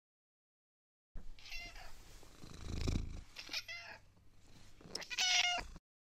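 Domestic cat meowing three times in short, high calls, the last the loudest, with a low rumble in between.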